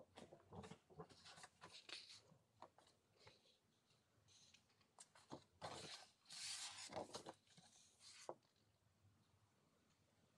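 Large sheets of scrapbooking paper being lifted, turned over and laid down on a stack, in a quiet string of short rustles, swishes and soft taps that dies away about eight seconds in.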